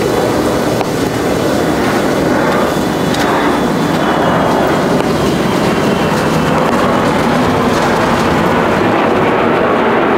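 Steady, loud rushing roar from a steaming sundae cooker at a street-food stall, with a few faint knife taps on a plastic cutting board as blood sausage is sliced.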